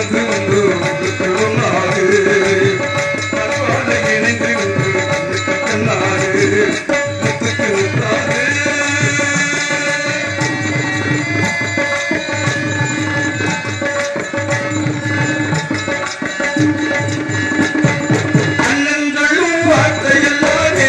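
Live drama-stage music: hand drums, a tabla-style pair and a large double-headed drum, play a steady rhythm under a sustained melody line.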